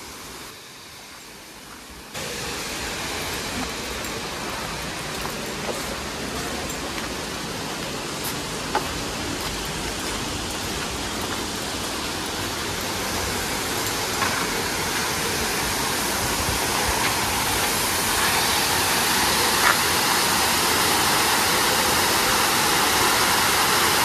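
Steady rushing of a waterfall, stepping up about two seconds in and then growing gradually louder as the falls come closer.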